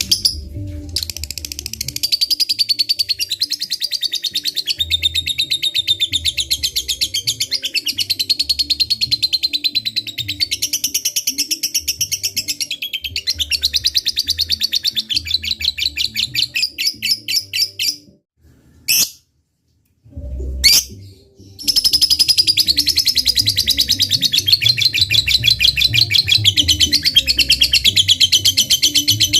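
Lovebird singing its long 'ngekek' chatter: a high, very rapid, continuous run of chirps, broken by a pause of a few seconds about two-thirds of the way through, then starting again.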